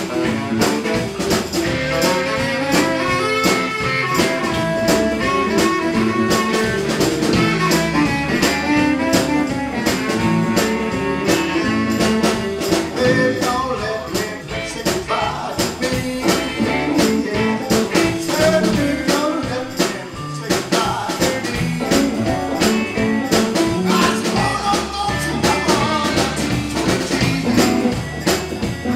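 Live electric blues band playing a song: electric guitars, bass, drum kit and saxophone, with the frontman on harmonica or vocals at the microphone.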